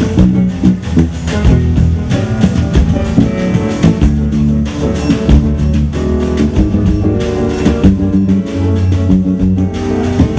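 Live samba band playing: guitar over a steady percussion beat of drums and hand percussion.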